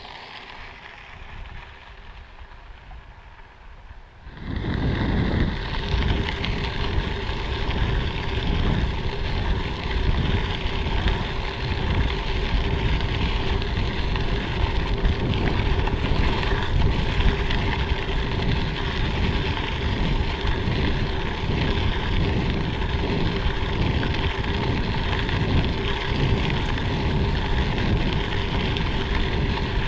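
Mountain bike riding on a gravel trail: tyres rumbling and crackling over the loose stone, with wind buffeting the microphone and a steady hum through it. About four seconds in, it jumps from a quieter stretch to this loud, even rush.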